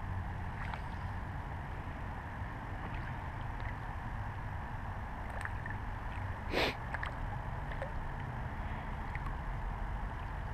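A hooked fish splashing and thrashing at the surface of a pond as it is played to the bank, with one sharp splash about two-thirds of the way through, over a steady low rumble.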